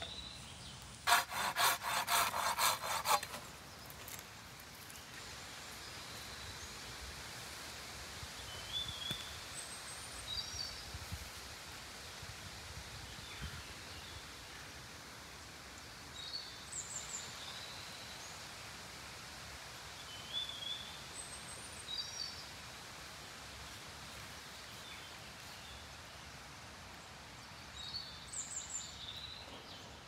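A hand saw cutting wood in quick back-and-forth strokes for about two seconds near the start. After that, a quiet outdoor background with short high bird chirps every few seconds.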